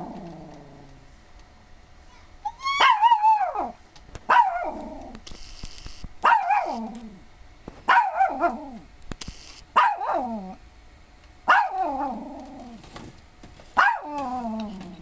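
Dog barking over and over, about eight drawn-out barks that each slide down in pitch, one every second and a half or so.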